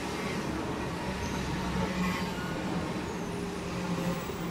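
Steady low hum and rumble of a large vehicle running, with a held low tone throughout.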